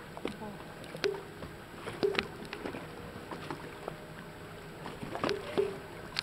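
Small waves slapping and knocking irregularly against a boat's hull over a faint steady hum.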